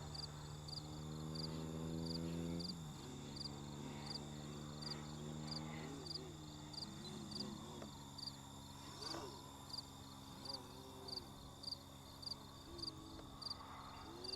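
An aircraft's engine drones steadily, its pitch dropping as it passes about three seconds in and then wavering. Crickets chirp at an even pace of about two a second throughout.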